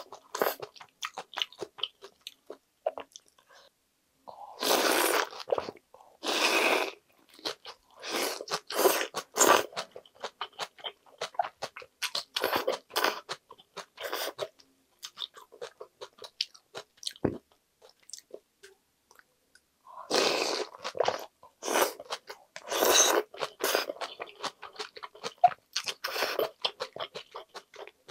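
Eating cold mulhoe with somen noodles: crunchy chewing and wet mouth clicks throughout. Several second-long slurps of noodles and icy broth from a wooden ladle come in between.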